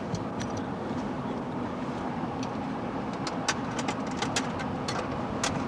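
Vehicle engine running steadily, heard inside the car as a low rumble with a faint steady hum, over many sharp scattered clicks and ticks that come thickest in the second half.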